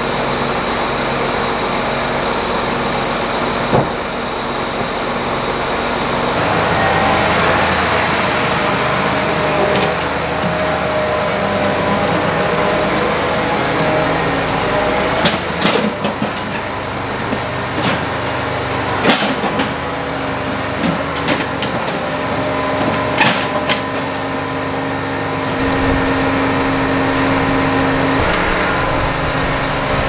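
John Deere tractor's diesel engine idling steadily, its pitch shifting a couple of times, with a few sharp knocks over it.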